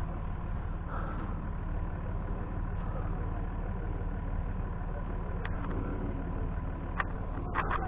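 Vehicle engine running steadily at low revs, with a few sharp clicks or knocks over it about five seconds in and twice more near the end.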